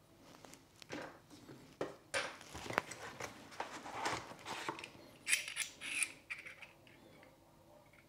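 Hands handling gimbal parts in a foam-lined box: a coiled cable is set down and a metal quick-release plate is lifted out, with rustling, scraping and clicks. The loudest scrapes and clicks come a little past the middle.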